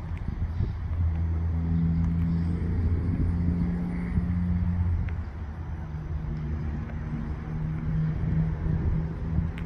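A car engine idling steadily, a low even hum, with irregular low wind rumble on the microphone.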